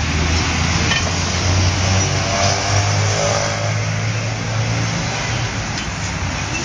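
Road traffic noise with a motor vehicle engine running steadily close by, a low even drone.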